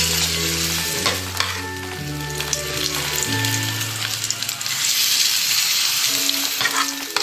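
Battered cauliflower florets sizzling as they fry in hot oil in a pan and are stirred, a steady frying hiss. Low held notes of background music change about once a second underneath.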